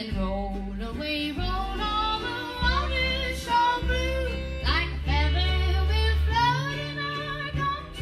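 Live acoustic string band music: fiddle, upright bass, mandolin and acoustic guitar playing a country tune, with the upright bass holding strong low notes under the melody.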